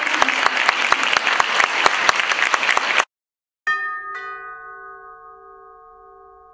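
Audience applauding, cut off abruptly about three seconds in. After a short silence a chime sounds two struck notes about half a second apart, which ring on and slowly fade.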